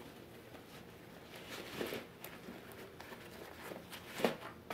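Faint fabric rustling and scraping as a padded nylon case is worked down over a cloth-wrapped gas canister by hand, with a louder scrape near the end.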